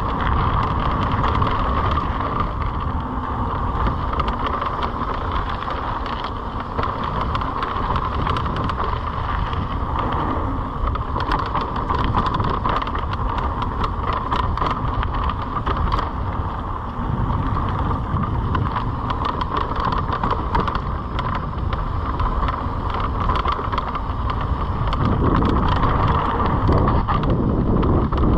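Mountain bike ridden fast down a dirt flow trail: wind buffeting the microphone and tyres rolling over the dirt, with many small rattles and clicks from the bike and a steady buzz.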